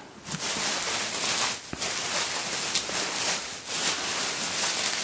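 Plastic bubble wrap crinkling and rustling as hands handle it, with two short lulls.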